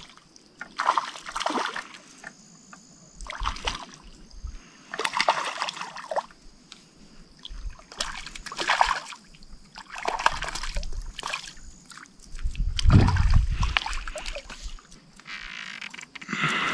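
Water splashing and sloshing in a run of short bursts about two seconds apart, with a heavier, deeper splash about thirteen seconds in.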